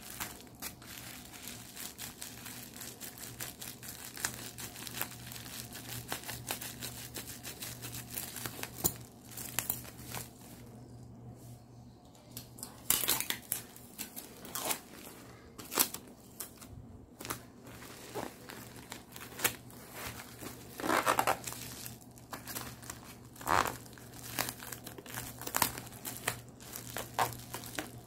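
Black plastic bubble mailer crinkling and rustling as it is cut with scissors and then folded and pressed by hand, with irregular sharp crackles of the plastic film.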